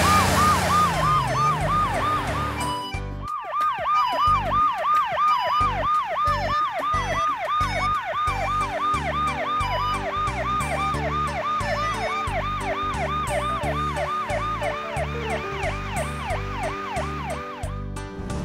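Ambulance siren in a fast warbling yelp, a quickly repeating rise and fall in pitch, breaking off briefly about three seconds in and then resuming, over a children's music backing.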